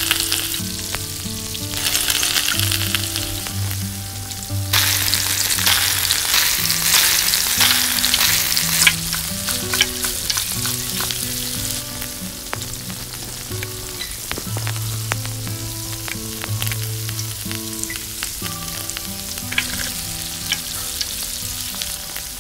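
Oil sizzling and crackling as a miniature stuffed kulcha fries on a tiny tawa. The sizzle swells about 5 s in and eases off after about 9 s. Soft background music plays underneath.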